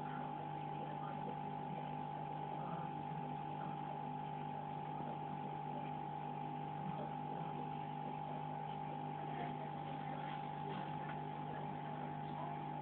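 Steady electric hum of an aquarium filter pump: several unchanging tones over a faint hiss.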